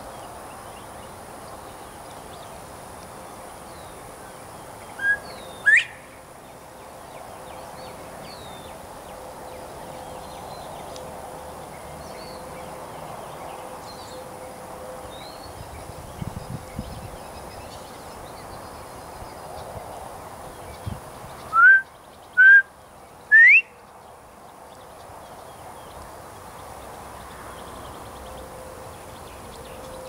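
Male northern bobwhite whistling its "bob-white" call, which the uploader takes for a mating call. About five seconds in comes a short low note and a loud rising whistle; near twenty-two seconds a three-note "bob-bob-white" that ends in a rising whistle. Faint high chirps sound between the calls.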